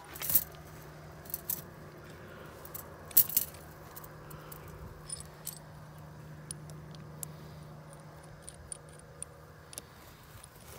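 Small metallic clinks and taps from a ground-rod clamp being fitted onto a grounding rod with bare copper ground wire, with a few louder knocks in the first few seconds. A low steady hum runs underneath and stops near the end.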